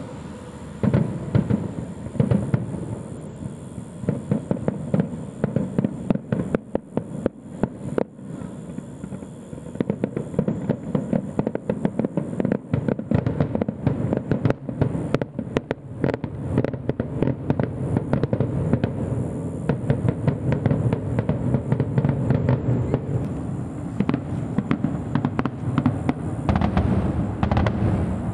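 Consumer fireworks going off in a dense, continuous stream of cracks and pops, with aerial shells bursting overhead and heavier bangs mixed in.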